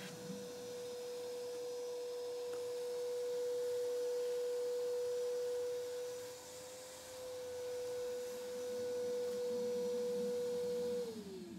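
Wet-and-dry shop vacuum running with a steady high whine, then switched off near the end, its whine falling in pitch as the motor winds down.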